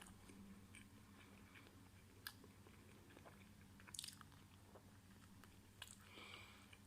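Faint chewing with a few soft mouth clicks as a person eats the last of a microwaved chicken burger, over a low steady hum.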